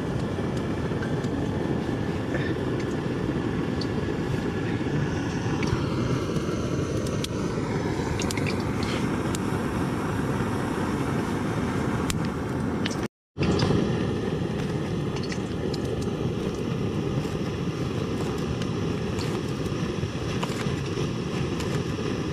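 Camping stove burner running with a steady low rush under a pan of heating oil. The sound cuts out completely for a moment about 13 seconds in.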